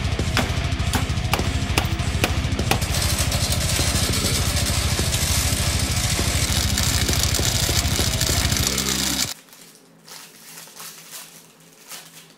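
Loud music track with drums and a regular beat, which cuts off suddenly about nine seconds in; after it come only faint small knocks.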